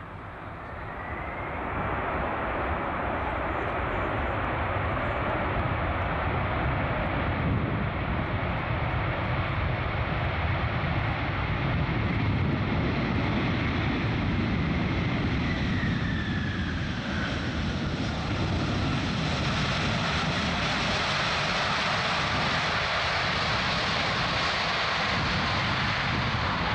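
Jet engine noise from a Boeing 747-400 freighter's four engines during its landing rollout. The noise swells over the first couple of seconds and then stays loud and steady, with a faint whistle that falls in pitch about two-thirds of the way through.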